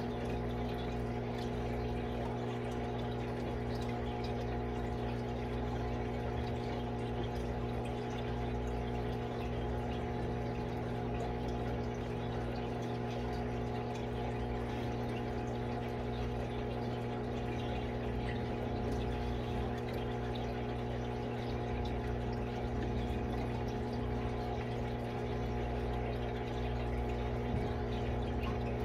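A steady machine hum made of several held tones over a faint even hiss, unchanging throughout.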